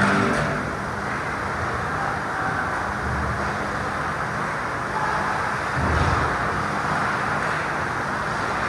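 Ice hockey rink ambience: a steady rumbling hum with a few faint knocks from play at the far end of the ice, one near the start and one about six seconds in.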